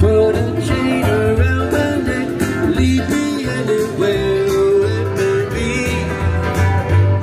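Live country-style music from a solo performer: plucked guitar with a singing voice holding and bending notes over a pulsing bass, played through PA speakers.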